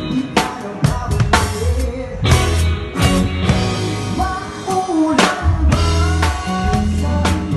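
Live band music with a drum kit played up close: frequent drum and cymbal hits over steady low bass notes and the rest of the band.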